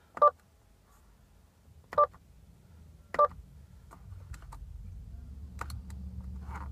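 Three short electronic beeps from the Subaru WRX's dashboard as the SI-Drive mode button is pressed, each beep on the same pitch. After them come a few faint button clicks, and a low steady hum comes up from about four seconds in.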